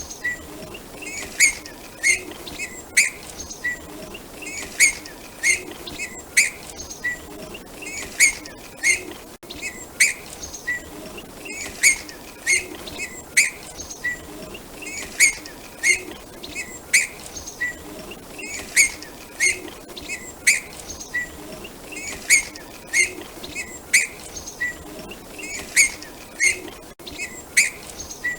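Curió (chestnut-bellied seed finch) calling in short, sharp chirps, in quick clusters of two to four notes repeated every second or two.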